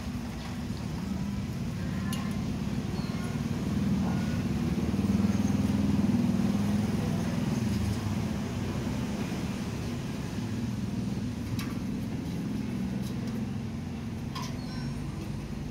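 Steady low rumble of a vehicle engine running, swelling a little from about four to eight seconds in, with a few faint ticks near the end.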